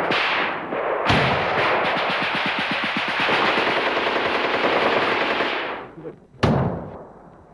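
Automatic gunfire: a long stretch of rapid shots lasting about five seconds, then one loud single shot or blast about six seconds in.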